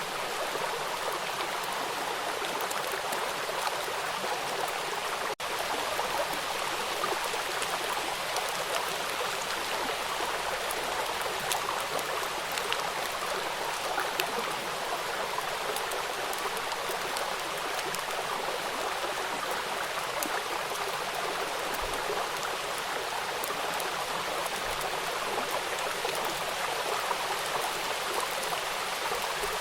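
Steady rain: an even hiss dotted with many small drop ticks, with a split-second break about five seconds in.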